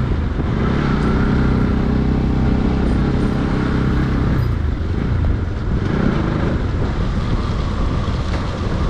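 A vehicle engine running while on the move, its tone steady for about four seconds and then changing, with road and wind noise.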